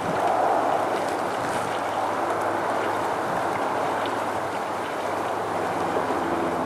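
Steady rushing outdoor noise of wind and water, with a faint, steady low hum under it that gains a few higher tones near the end.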